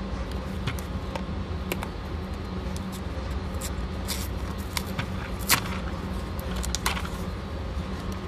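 Scattered light clicks and rattles of handling, the sharpest about five and a half seconds in, over a steady low background rumble.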